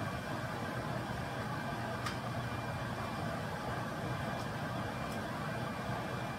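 Stove vent fan running with a steady whir and a faint thin whine on top. A few light clicks of a utensil against the pan come about two seconds in and again near the end.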